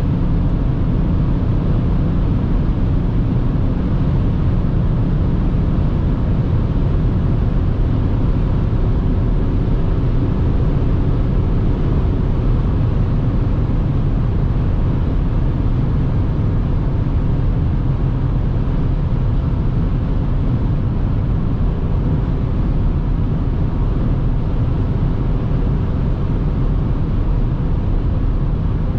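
Steady interior drone of a BMW X5 E70 3.0d cruising at about 180 km/h: its inline-six turbodiesel engine mixed with tyre and wind noise, heavy in the low end and unchanging throughout.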